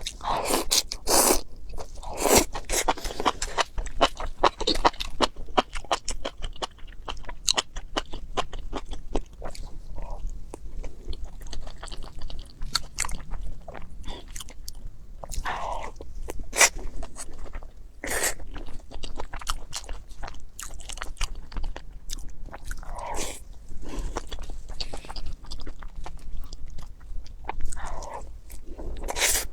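A person chewing and crunching food close to the microphone: a dense run of crisp crunches and mouth clicks, with a few louder bites spread through.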